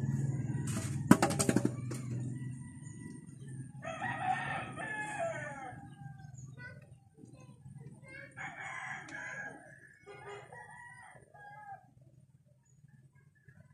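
A rooster crowing three times, each crow lasting a second or more. About a second in there is a quick run of sharp clicks, the loudest sound, over a low rumble that fades out over the first few seconds.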